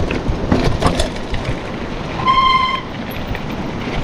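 Hardtail mountain bike rattling and clattering as it rolls over a rocky, wet trail on a descent, with many small knocks from the frame and chain. About halfway through, a brief steady squeal sounds for about half a second.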